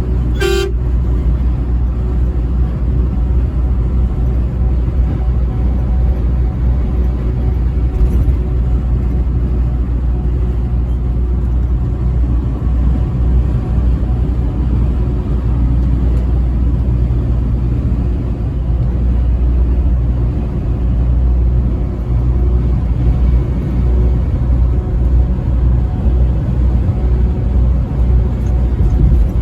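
Truck driving on the highway: a steady low engine drone and road rumble. About half a second in there is one brief tone.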